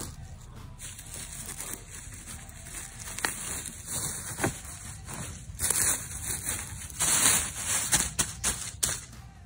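A hand brushing and parting dry pine needles and forest-floor litter, rustling and crackling. It is quieter at first, with louder bursts in the second half.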